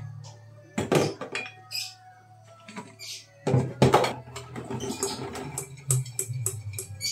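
Glass bottles and pump dispensers clinking and knocking against each other and a stainless-steel sink as they are handled and scrubbed with a bottle brush. There are a few separate sharp knocks, then a run of quicker small clinks near the end.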